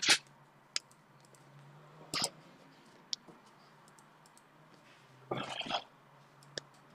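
Computer mouse clicking: scattered single sharp clicks, with a short run of clicks about five and a half seconds in, over a faint steady low hum.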